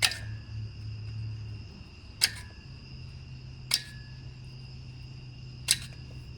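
Four sharp metallic clicks, about two seconds apart, each with a brief ringing: a steel tool working at the small retaining clips that hold a brake rotor to the hub.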